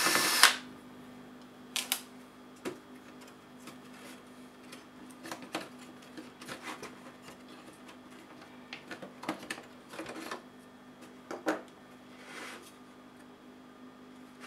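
A cordless electric screwdriver runs briefly and stops within the first half second. Then come scattered small clicks and taps of plastic and metal laptop parts being handled and lifted out, over a faint steady hum.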